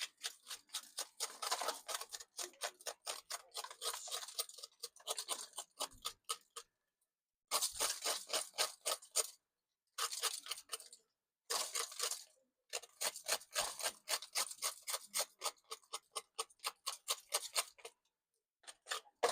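Roast saltfish being scraped: runs of quick, rasping scraping strokes, several a second, broken by short pauses.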